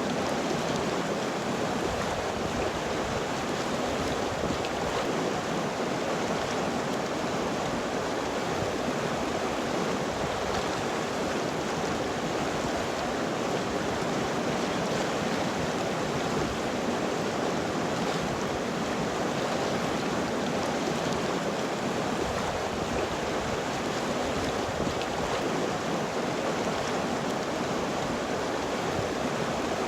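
River water flowing and rushing steadily over rocks, an even unbroken rush of water.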